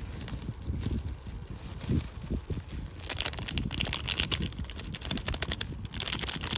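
A seaweed seasoning packet rustling as it is tipped and shaken out over a paper fry bag, with paper and plastic-glove crinkling; from about three seconds in the rustle turns into a dense, rapid rattle as the seasoning is shaken out.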